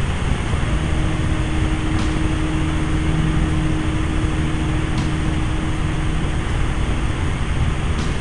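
Helicopter in flight heard from inside the cabin: steady engine and rotor noise with a deep rumble and a constant hum.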